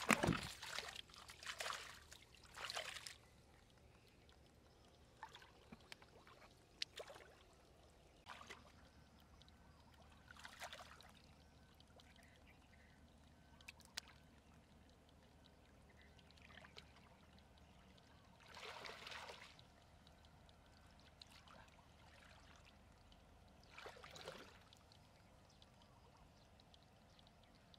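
Faint splashing and sloshing of shallow muddy water as a person wades through it, in short bouts several seconds apart with quiet trickling between.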